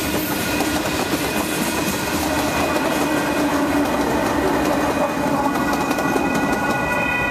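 A freight train's last hopper cars and a trailing Union Pacific diesel locomotive roll past, their wheels clattering over the rails at a road crossing. The train noise thins out near the end. Under it the crossing's warning bell rings steadily.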